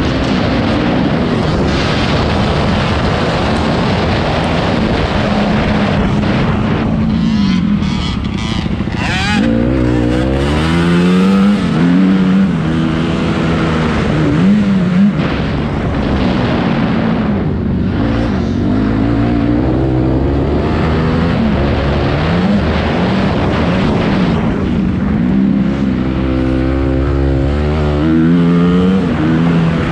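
Honda CRF250R four-stroke single-cylinder motocross engine under hard riding, heard from on the bike. Its pitch keeps climbing as the throttle is opened and dropping back as it is closed, with brief let-offs about 8 and 17 seconds in.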